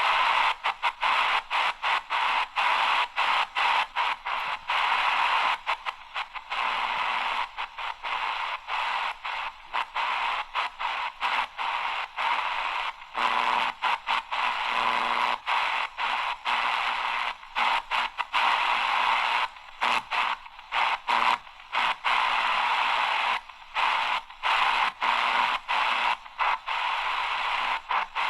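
Shortwave static hiss from the AGPTEK R09 portable radio's speaker as it is tuned quickly through the band, the hiss cutting out briefly dozens of times as the tuning steps. Around the middle, a faint low hum of a weak signal comes through under the hiss.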